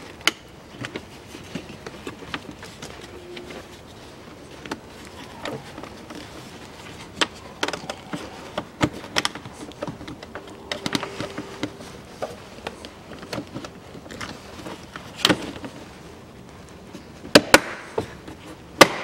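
Hard plastic clicks, knocks and rustling as an Opel Astra GTC's dashboard end trim panel is worked and snapped into place. The clicks are scattered and irregular, the sharpest a single one about fifteen seconds in and a close pair near the end.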